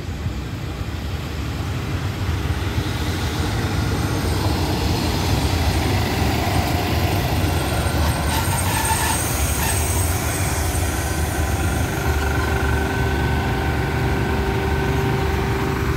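Diesel railcar train rolling slowly into a station loop track: a low engine drone that grows louder as it draws near, with wheel clicks on the rails about halfway. A steady whine sets in past the middle as it slows to stop.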